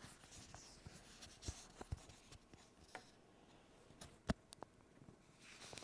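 Hibrew portable espresso maker heating its water toward the boil: a faint hiss with scattered small ticks and clicks, one sharper click about four seconds in.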